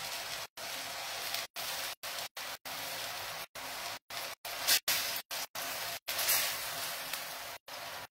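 Chicken rolls sizzling as they fry in a pan, with a louder spurt of sizzling about halfway through and another a little later. The sound drops out for an instant about a dozen times.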